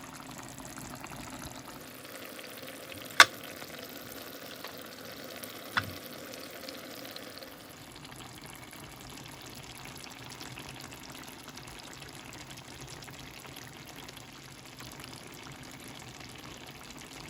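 Chicken curry sizzling and bubbling in a pan, its sauce cooked down thick. Two sharp knocks come through it, about three and six seconds in; the first is the louder.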